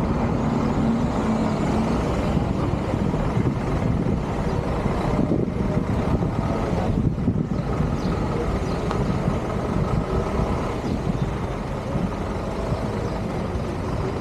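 Motor vehicle running, with steady engine and road noise.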